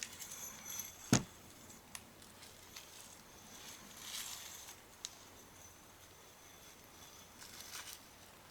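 Crinkly rustling and light clicks of a stainless-steel scrubber and glass wool being handled and pressed around a muffler baffle, with one sharp knock about a second in.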